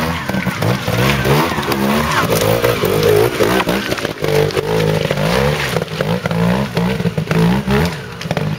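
Trials motorcycle engine revving up and down over and over as the bike climbs a rocky section.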